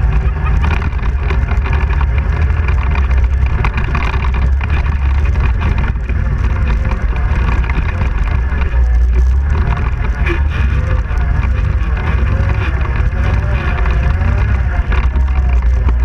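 ATV engine running under way on a rough dirt trail, a steady low rumble whose pitch rises and falls as the throttle changes.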